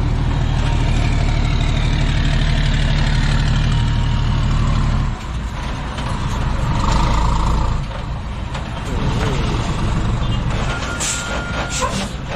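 Heavy diesel truck engine running loud and steady close by, dropping off sharply about five seconds in to a quieter, rougher running, with a few short sharp noises near the end.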